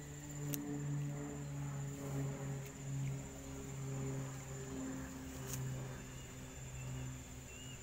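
A steady high-pitched insect trill runs throughout, with a low droning hum swelling and fading beneath it.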